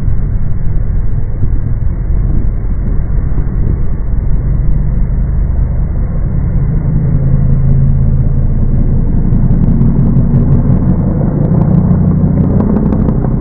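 Cars driving on a road: a loud, steady low rumble of engine and road noise, with an engine note that strengthens and rises a little in the second half.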